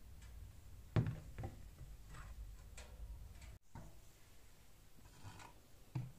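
Wooden handle blocks for a katana knocked and set down on a workbench against the blade's tang: a sharp wooden knock about a second in, a softer one just after, a few light taps, and another knock near the end.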